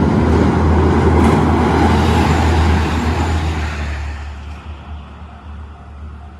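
Train passing through a railroad crossing: a loud rushing rumble that holds for about three seconds, then fades away as the train moves off.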